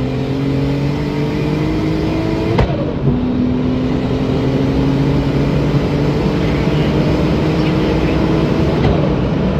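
Turbocharged R32 VR6 engine of a 2001 Audi S3 pulling hard at full throttle on low boost, heard from inside the cabin. The revs climb steadily through each gear, with a quick upshift and drop in pitch about two and a half seconds in and another near the end, over steady road and wind noise.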